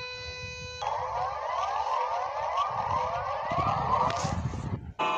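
Emergency-alert-style siren alarm: a steady held tone with many overtones, which a little under a second in gives way to a dense wash of many overlapping rising sweeps over a low rumble. It stops abruptly just before the end.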